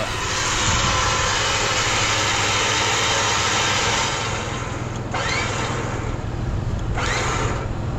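A vehicle engine idling steadily. A loud rushing hiss lies over it for the first four seconds, then drops away.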